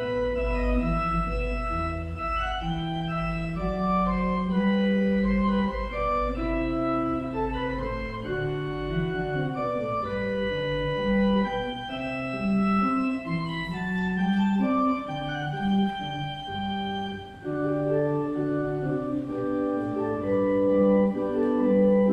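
Organ music: slow, sustained chords with a moving upper line, each note held steady without fading.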